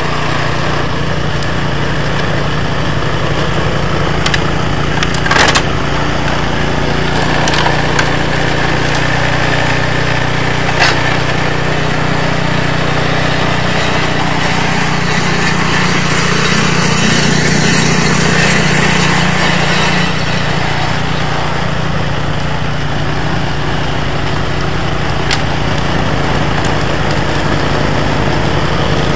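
Two-stage snowblower's Briggs & Stratton 950 Snow Series single-cylinder engine running steadily under load while the auger and impeller churn and throw packed snow. Louder and fuller for a few seconds past the middle, with a few sharp knocks.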